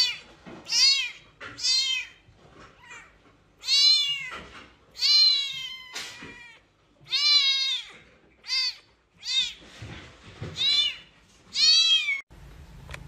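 A very young blue-and-white British shorthair kitten meowing over and over: about ten high, thin calls, each rising and then falling in pitch, with short pauses between them.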